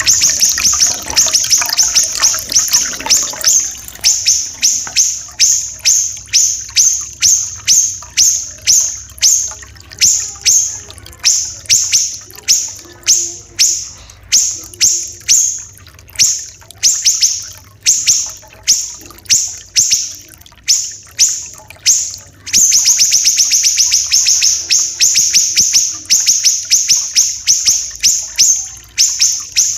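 Siri-siri kecil singing: a fast, dense run of sharp, high notes, then single sharp notes at about two a second. About two-thirds of the way through it breaks into another fast, dense run, then goes back to single notes.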